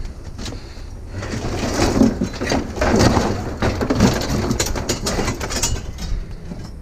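Heavy scrap metal being shoved and shifted onto a load, with a dense run of clattering, scraping and knocking that builds about a second in and eases off near the end.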